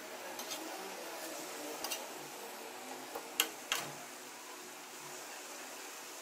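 Slotted metal spatula clicking and scraping on an iron tawa as pieces of chicken are turned, a few sharp clicks with the loudest pair about three and a half seconds in, over a faint steady hiss.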